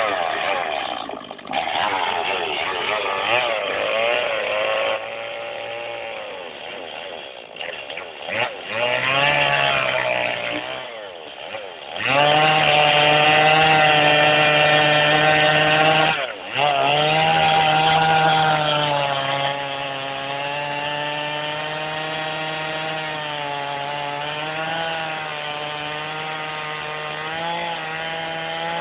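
Chainsaw running and cutting wood, its engine pitch dipping and rising as the chain bites and frees. It is loudest for a few seconds in the middle, breaks off for a moment, then runs on steadier and a bit quieter.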